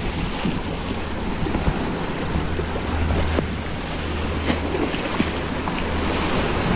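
Small sea waves washing over rocks and sand, with wind rumbling on the microphone.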